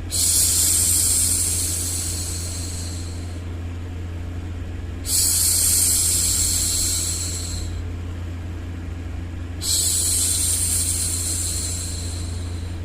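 A woman's long hushing 'shhh', three times about every five seconds, each shush starting strongly and fading out over a couple of seconds. Under it runs a steady low white-noise bed.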